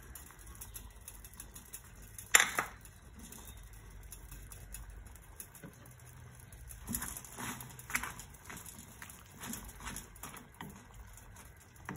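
Cooking clatter at a stainless steel saucepan: one sharp knock about two seconds in, then a run of light taps and knocks as a wooden spatula stirs moringa leaves into the pot.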